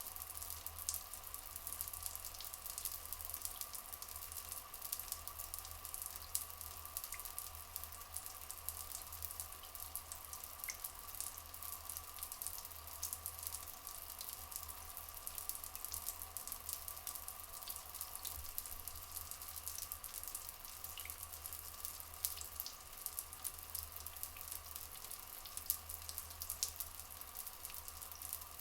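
Flowing water trickling steadily, with a dense patter of small drips and crackles over a constant low hum.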